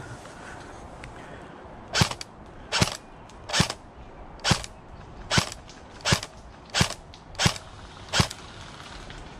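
Airsoft gun fired as nine sharp single shots, a little more than one a second.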